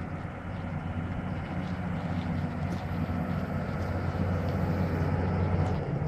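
Diesel engine of a remote-controlled tracked rock drill rig running steadily with a deep, even hum, growing a little louder near the end.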